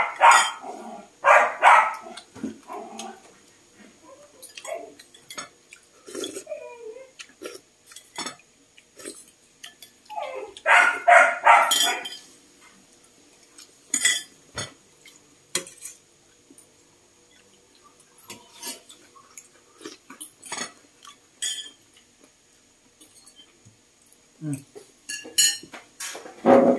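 A dog barking in short runs of several barks near the start and again about ten seconds in, with a spoon and bowls clinking now and then in between.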